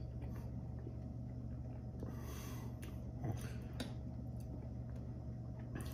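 Quiet eating sounds over a steady low room hum: a man chewing, a short breath about two seconds in, and a couple of light clicks of a metal spoon against a ceramic bowl a little after three seconds in.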